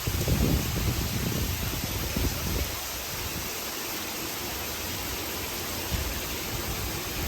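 Steady hiss of heavy rain falling. A low rumble runs under it for the first two or three seconds, then the hiss settles to an even level.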